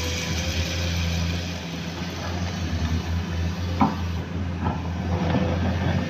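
Komatsu PC210 excavator's diesel engine running steadily, with a few sharp knocks a little after the middle.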